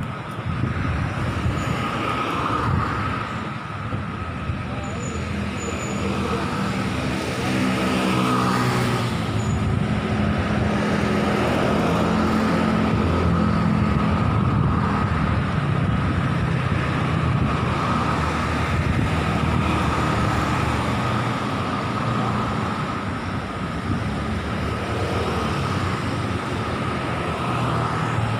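Steady street traffic, motorcycles and cars passing, with one vehicle's engine note swelling and bending in pitch around the middle as it goes by. A thin, steady high tone runs underneath throughout.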